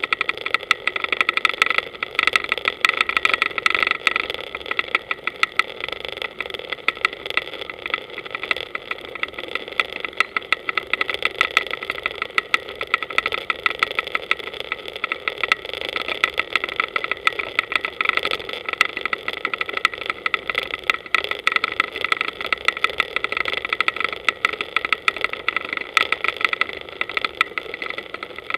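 Motorboat engine idling steadily, with a fast, dense ticking rattle over its hum.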